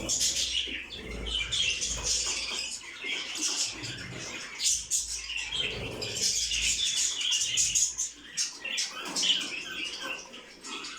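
A mass of small caged pet birds chirping and chattering, many short calls overlapping without a break.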